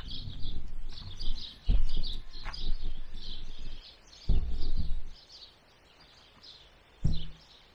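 Wild birds singing with repeated short chirps, while wind buffets the microphone in several low gusts; the gusts are the loudest sounds and die down after about five seconds.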